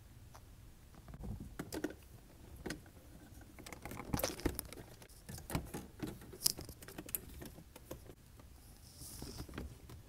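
Irregular small clicks and taps of hard plastic trim and switch parts being handled at a car's centre console, with the rustle of a clear plastic parts bag near the end.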